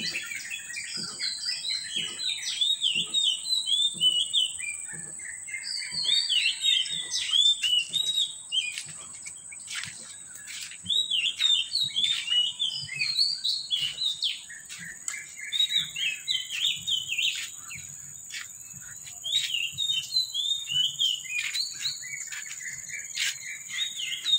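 Several birds chirping and twittering in quick repeated phrases, over a steady high-pitched whine.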